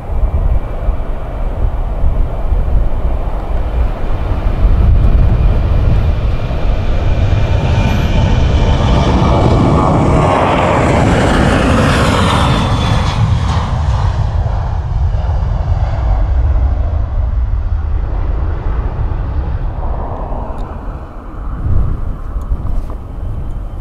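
Norwegian Boeing 737 jet airliner taking off at full thrust. The engine noise builds as it rolls past and lifts off, is loudest about halfway through, then fades as the aircraft climbs away.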